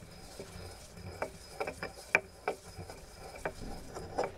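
Stone pestle grinding spices in a stone mortar: faint rubbing with irregular sharp taps of stone on stone, about a dozen in all.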